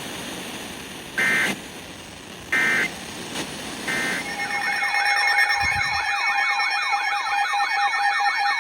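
Emergency Alert System data tones: three short, harsh SAME bursts about a second apart over radio static, the end-of-message code closing the previous alert. About four seconds in, a loud alert signal starts and holds: a steady two-tone attention tone with a fast, warbling siren-like sweep over it.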